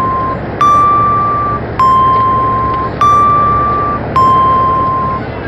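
Electronic two-tone warning chime sounding over and over, alternating a higher and a slightly lower note, each struck about once a second and fading as it rings, over a steady background rumble.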